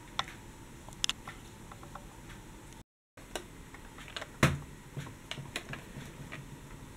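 Hard plastic toy tram being handled and turned over in the hand: scattered light clicks and taps, with a louder knock about four and a half seconds in. The sound cuts out completely for a moment just before the middle.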